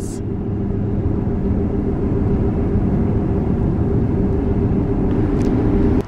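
Steady road and tyre noise of a Tesla electric car driving at speed, a low, even rumble with no engine note.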